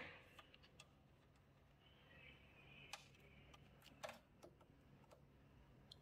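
Near silence, broken by a few faint clicks and taps of fingers handling the rubber grommets in the inverter charger's metal case; the sharpest click comes about four seconds in.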